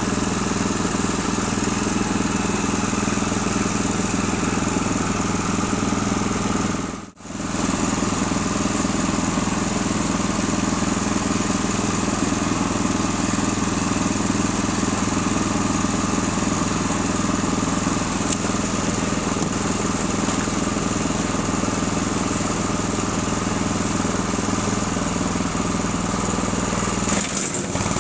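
A 6.5 hp wood chipper's small engine running steadily at an even speed. The sound cuts out briefly about seven seconds in and comes straight back.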